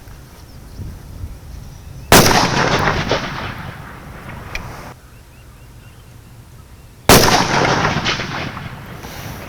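Two rifle shots from a Ruger Precision Rifle, about five seconds apart, each a sharp crack followed by a long echo that dies away over two to three seconds.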